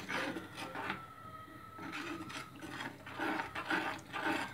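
Steel ladle scraping and rubbing against the inside of a clay pot in repeated, irregular strokes, mashing the leftover lentil lumps into the rasam.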